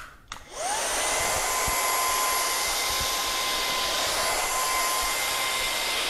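Kyvol V20 cordless stick vacuum switched on: a click, then its motor spins up with a rising whine about half a second in and runs steadily, a high whine over a rush of air.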